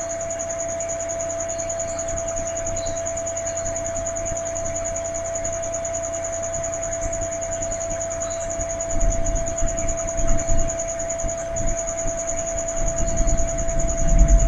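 Steady high-pitched electrical whine with a lower hum over background hiss. From about nine seconds in, irregular low bumps and handling noise join it, as drawing tools are moved on the desk.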